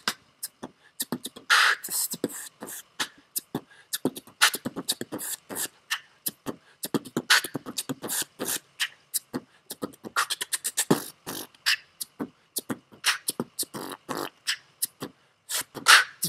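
A man beatboxing: a fast, unbroken run of percussive mouth sounds, sharp clicks and hissing strikes.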